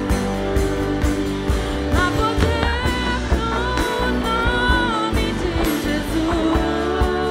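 Live worship band playing: electric bass and electric guitar under a steady beat, with a singing voice coming in about two seconds in.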